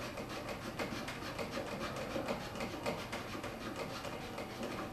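Plastic water-tank cap on a laser machine being unscrewed by hand: a steady run of rubbing, scraping clicks.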